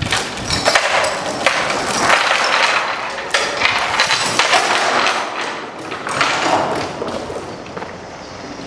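Steel tie-down chain rattling and clanking as it is pulled through the eye of a metal coil and dragged across the flatbed trailer deck, with knocks of links striking metal; it dies down near the end.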